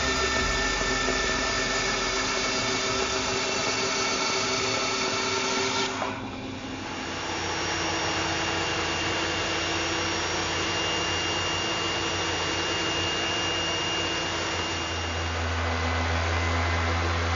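Three power tools working oak one after another: a band saw cutting, then after a sudden change about six seconds in a belt sander running, and near the end a random orbit sander with a stronger low hum. Each is a steady machine sound.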